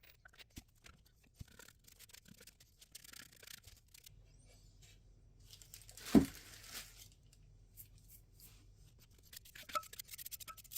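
Quiet, scattered scraping and rustling of hand work, with one louder knock about six seconds in.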